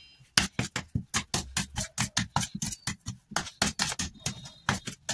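A metal spoon tapping and scraping on a steel plate in quick repeated strokes, about four to five a second, as it pats soft coconut barfi mixture flat to set.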